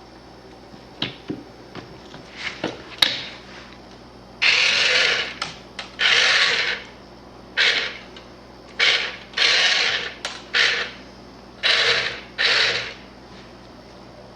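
Small electric motor of a remote-controlled cat exerciser toy whirring in about nine short bursts, each half a second to a second long, starting and stopping as it is driven in spurts. A few sharp clicks come before the first burst.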